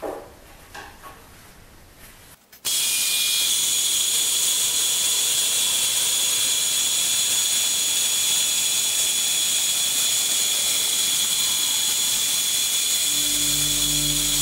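A few light metal clanks as the stock is set. About two and a half seconds in, a Milwaukee Hydraulics horizontal cutoff band saw comes in suddenly, cutting 2.5-inch steel box tube with a steady, loud hiss and a thin high whine. Music comes in near the end.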